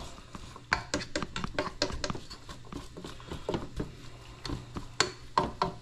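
Slotted spoon stirring and scraping chopped vegetables in a cooking pot: irregular clicks and scrapes several times a second, with two louder knocks about five seconds in, over a low steady hum.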